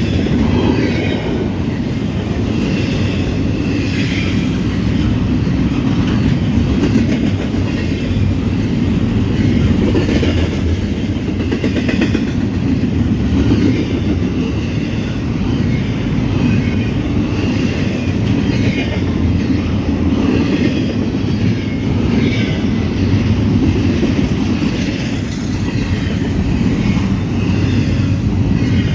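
Norfolk Southern freight train rolling past: a steady, loud rumble of the cars, with wheels clicking over the rail joints.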